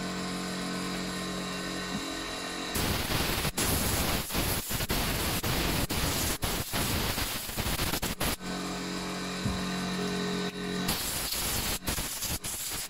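Compressed air hissing in loud bursts as a blow gun is held to the chainsaw's cylindrical air filter to blow out the dirt, broken by short stops. A steady hum fills the gaps between the bursts, for about the first three seconds and again shortly past the middle.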